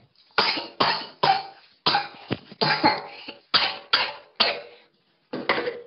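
A person coughing in a rapid fit, about a dozen hard coughs with a short break near the end, set off by deodorant fumes in a stuffy room.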